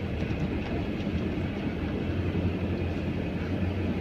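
Steady low hum of a car's engine and tyres driving slowly on an unpaved dirt track, heard from inside the cabin, with a few faint ticks.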